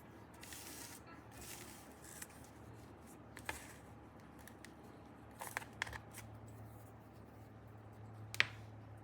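Hands working a twisted cord into a plum knot: soft rustling of the cord with a few sharp clicks, the loudest near the end, over a faint steady low hum.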